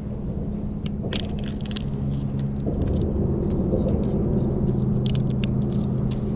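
A steady low engine hum, like vehicle traffic, with scattered short clicks and crackles from a thawed bait crab being worked by hand.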